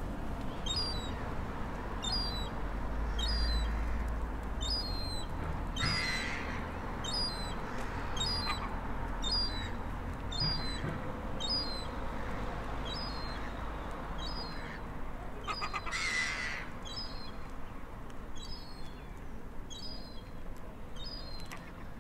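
Gulls calling, with two louder calls about six seconds in and again about sixteen seconds in. Under them a thin high chirp repeats about once a second over a steady low rumble.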